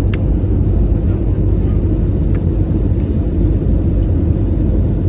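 Steady low rumble of jet engines and rushing air inside an airliner cabin in flight, with a few faint clicks.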